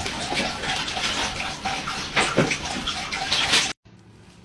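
Water running, cutting off suddenly near the end.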